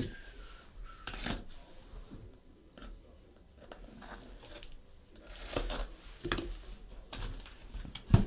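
Sealed cardboard case of trading-card boxes being cut and torn open: scattered cutting, tearing and crinkling strokes, with one sharp knock near the end.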